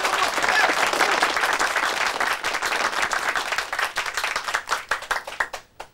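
A small crowd applauding, dense at first, then thinning to a few scattered separate claps before stopping abruptly.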